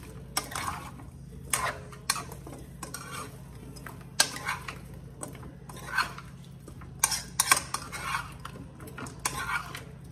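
Metal spoon scraping and clinking against a nonstick pot as chopped eddoes are stirred and turned, in irregular strokes about once or twice a second, over a steady low hum.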